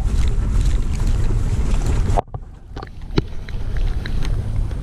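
Wind rumbling on the microphone over sea noise at the shore. It cuts off abruptly about two seconds in. A much quieter stretch follows, with a few sharp clicks.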